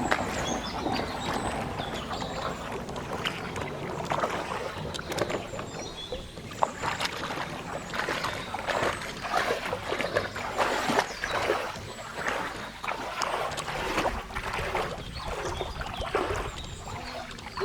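Water splashing and sloshing in irregular strokes, as when wading or working in shallow water while fishing.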